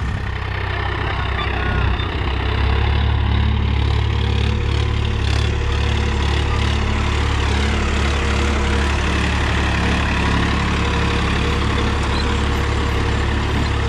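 Swaraj 963 FE tractor's three-cylinder diesel engine running steadily at low engine speed under load, pulling a disc harrow through dry soil. It grows a little louder about two and a half seconds in, then holds steady.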